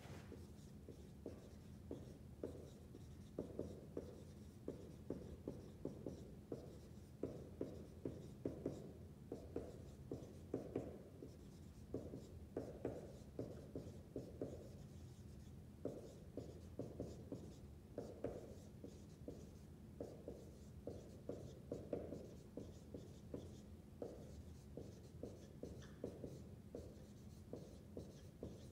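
Dry-erase marker writing on a whiteboard: many short, irregular strokes and taps as words are written one after another, over a faint steady low hum.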